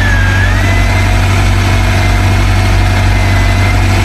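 Fishing boat's engine running steadily, a loud, even low drone, with a thin high whine on top that dips slightly in pitch just after the start and then holds.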